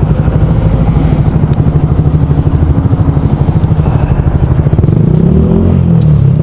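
Yamaha YZF-R125's single-cylinder four-stroke engine running, heard from inside the rider's helmet, with a steady rapid pulse; its note rises a little about five seconds in as the bike gets going.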